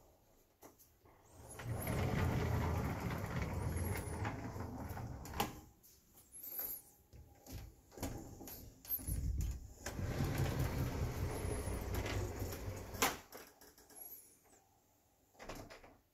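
A sliding cupboard door rolling along its track twice, each run a few seconds long with faint squeaks, and ending in a knock as it meets its stop.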